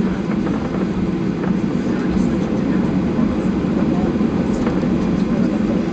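Steady jet engine and airframe rumble heard from inside the cabin of a Ryanair Boeing airliner.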